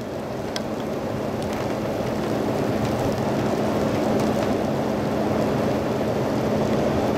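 Steady rain noise heard through a rain-soaked, muffled microphone, slowly growing louder, with a low steady hum underneath and a few faint ticks.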